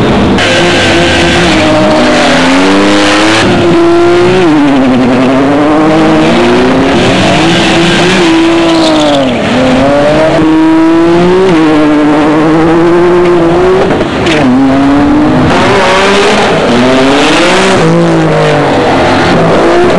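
Nissan Skyline GT-R engines revving hard on drag runs, the pitch climbing and dropping again and again. Loud throughout, with a brief dip about halfway and another a few seconds later.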